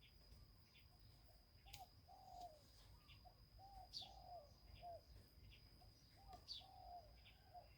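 Faint dove cooing: short phrases of a few coos, repeating about every two and a half seconds, over a steady thin high-pitched tone.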